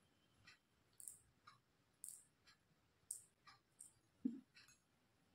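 Near silence broken by faint, irregular plastic clicks, about one or two a second, as the cap of a small medicine bottle is twisted open and handled. A brief low sound comes about four seconds in.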